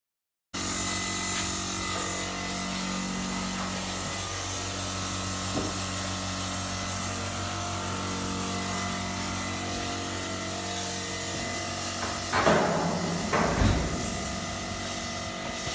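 After a moment of silence, a steady hum; about twelve seconds in comes a burst of scraping and a heavy knock as a fibreglass modular bathroom pod is slid across a shipping container's floor on lengths of electrical conduit.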